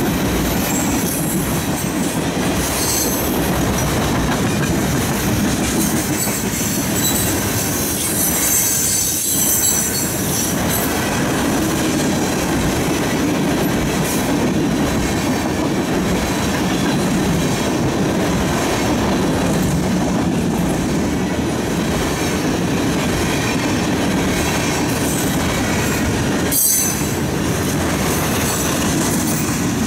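CN freight train cars rolling past over the level crossing: a steady, loud rumble of steel wheels on the rails, with high-pitched wheel squeal rising now and then, strongest about eight to ten seconds in.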